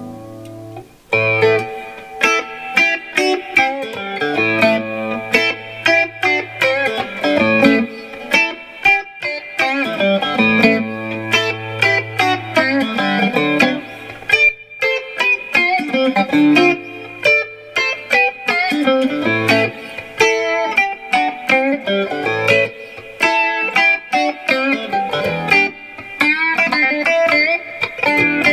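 Monoprice Indio Retro Classic Tele-style electric guitar played through an amp: a continuous stream of picked single notes and chords, with low bass notes ringing under them every few seconds, after a brief pause about a second in.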